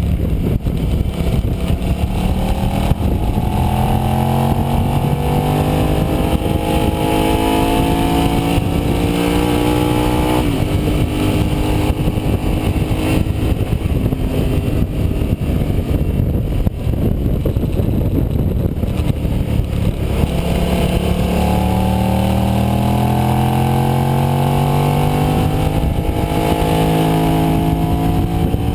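Sport motorcycle engine at speed on a race track, heard from onboard with wind rush over it. The engine note climbs as it accelerates, drops abruptly about ten seconds in as the rider comes off the throttle for a corner, holds fairly steady, then climbs again through the second half.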